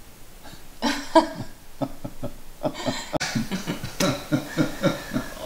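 A person coughing and catching their breath: a few rough vocal coughs, then a quick series of short breathy voiced gasps, about three a second, in the second half.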